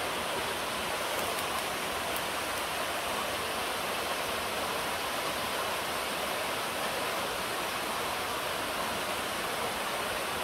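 A small mountain stream cascading down a bare rock chute: a steady, even rush of falling water.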